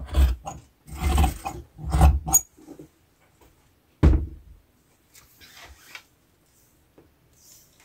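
Scissors cutting through cloth, a quick run of crunching snips for the first two and a half seconds. A single thud follows about four seconds in, then faint rustling.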